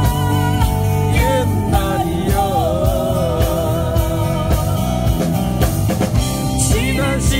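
A live band playing with drums and guitar, and a singer's voice carrying a wavering melody that comes in about a second in.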